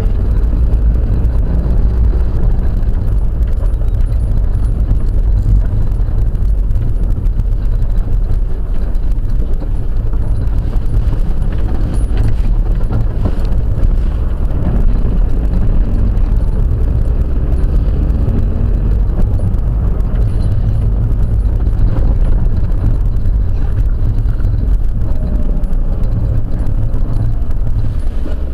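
Vehicle engine running with a steady low drone, heard from inside the cab while driving along a snow-covered road.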